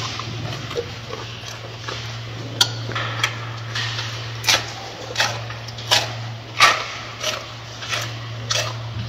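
Gorilla chewing crisp lettuce leaves: a steady run of sharp crunches, about one and a half a second, starting a couple of seconds in, over a steady low hum.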